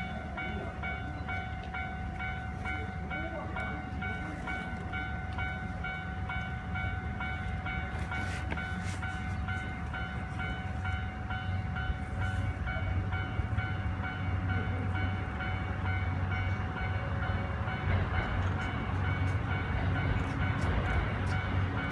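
Japanese level-crossing alarm ringing steadily in a repeating pattern as a train approaches, its low rumble growing louder through the second half.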